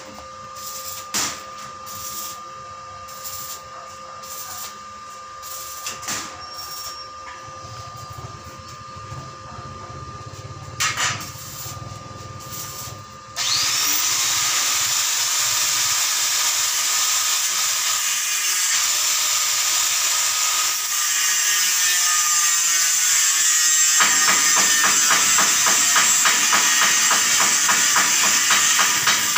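Arc welding on the steel gate frame, crackling quietly with scattered ticks for the first dozen seconds. About thirteen seconds in, an angle grinder switches on with a brief rising whine and runs loudly. From about twenty-four seconds it bites into the steel frame with a rapidly pulsing grind.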